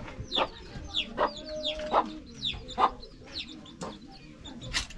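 Young chicks peeping over and over, short high peeps that fall in pitch, about two or three a second, with a couple of sharp knocks near the end.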